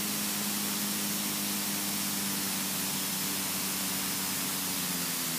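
Steady cockpit noise of a Robin DR400 rolling down the runway after landing: an even hiss over a low steady engine hum, which shifts slightly near the end.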